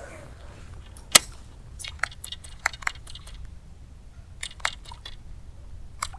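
Daisen Shotokan baitcasting reel and rod after a cast: one sharp click about a second in, then a string of light, irregular clicks and ticks as the stick bait is worked on the surface.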